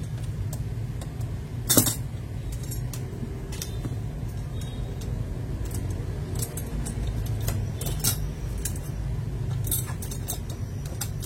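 Akko mechanical keyboard switches being handled: scattered small plastic clicks and clinks, the sharpest about two seconds in, over a steady low hum.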